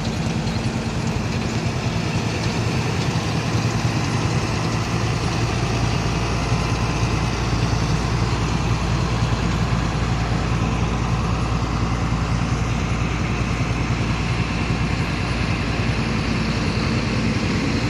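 Pneumatic-tyred road roller's diesel engine running steadily with a low, even hum.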